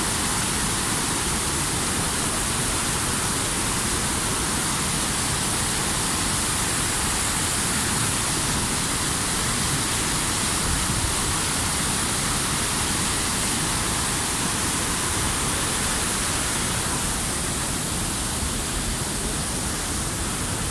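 The Düden Waterfall's falling water, a steady, unbroken rushing noise.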